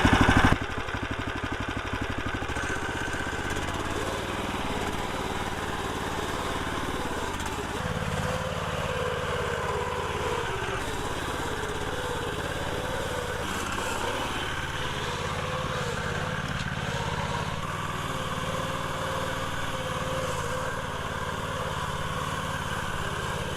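420cc Predator single-cylinder engine running steadily as the mini articulating 4x4 is driven. The sound drops abruptly to a lower level about half a second in.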